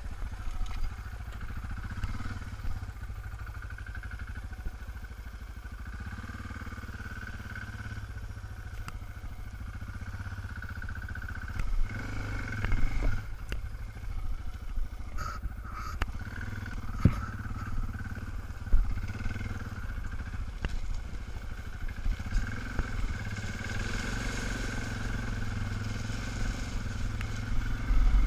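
Suzuki DR650's single-cylinder engine running at low speed as the motorcycle rolls over a rough dirt and gravel track, with a few knocks midway. It gets a little louder in the last few seconds.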